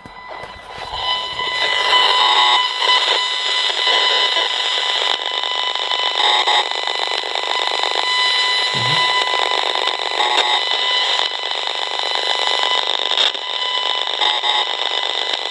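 Esmog Spion high-frequency detector's speaker giving out a loud buzzing hiss with steady whistling tones: the audible form of a Powerline (PLC) adapter's signal spreading over the house wiring, which comes up about a second in as the adapter is plugged back in. Short chirping patterns repeat about every four seconds over the buzz.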